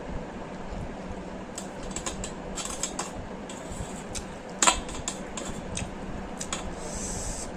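Close-miked eating sounds: spicy instant noodles being chewed, with many small mouth and utensil clicks and one sharper click a little after halfway.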